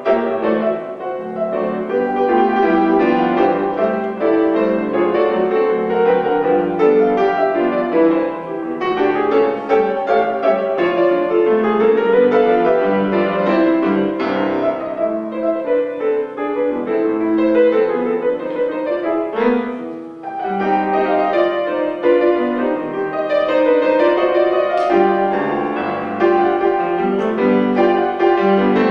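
Solo grand piano playing a classic ragtime piece, with dense, continuous notes, briefly easing off about twenty seconds in before the playing picks up again.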